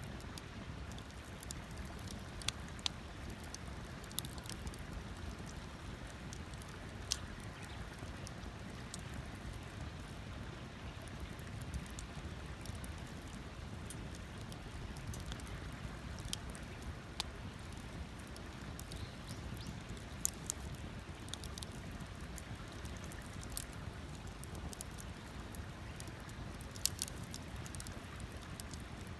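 Wood campfire crackling: scattered sharp pops, a few seconds apart at irregular intervals, over a low steady rumble.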